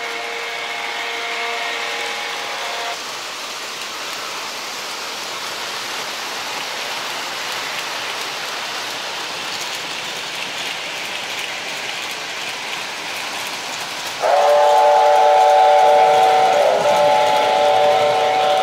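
Model trains running on a three-rail layout with a steady rattling hum. A toy train whistle sounds a chord of several notes for about three seconds at the start, and again louder from near the end, in two blasts.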